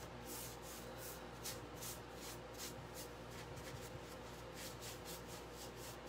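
Paintbrush brushing chalk paint onto a wooden dresser: faint, quick, repeated swishing strokes, about three a second.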